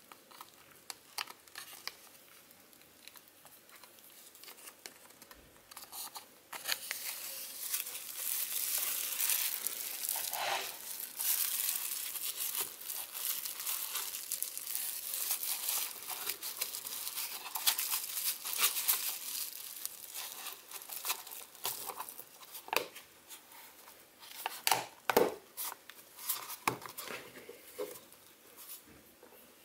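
Bubble wrap crinkling and crackling as it is squashed into a small plastic junction box and the lid is pressed down over it. The crinkling starts about six seconds in and runs for about a quarter of a minute, then gives way to scattered sharp clicks and knocks of the plastic lid being handled.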